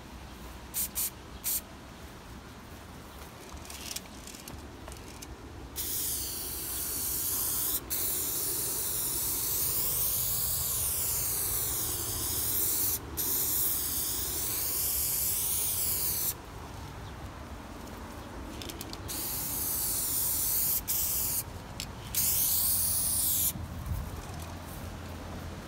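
Aerosol spray-paint can hissing as paint is sprayed onto a wall: a few short puffs at first, then a long spray of about ten seconds broken by two brief pauses, then more short bursts and a final spray of over a second. During the long sprays the hiss wavers in tone as the can sweeps along.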